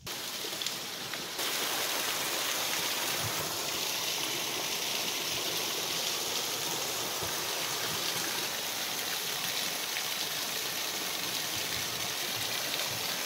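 Steady rush of a small waterfall splashing down a rock face, which gets a little louder about a second and a half in.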